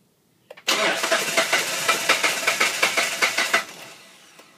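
Mitsubishi Pajero's engine being cranked on its starter, turning over with a quick, even pulsing for about three seconds without catching, then stopping. The engine cranks but won't start, and the plug being tested shows no spark.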